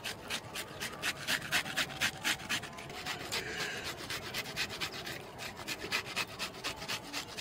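Raw green banana being grated on a hand grater: quick, even rasping strokes, about four a second.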